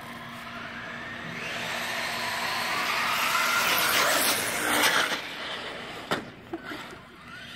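Traxxas Slash 4x4 RC truck's electric motor whining higher as it speeds up, with its tyres rushing on the concrete, growing louder to a peak about four to five seconds in and then fading. A sharp knock follows about six seconds in.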